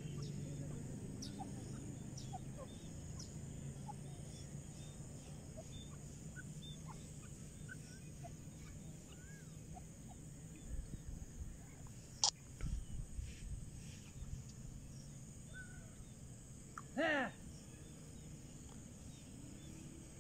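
Rural outdoor ambience with scattered faint, short bird chirps. There is a sharp click a little past halfway, with some low thumps around it. Near the end comes one short, loud, harsh animal call.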